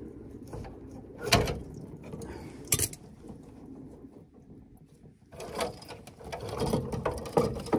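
Clicks and metallic rattling of boiler pipe fittings being worked loose by hand as the expansion vessel hose is disconnected: two sharp clicks, then denser clattering from about five seconds in.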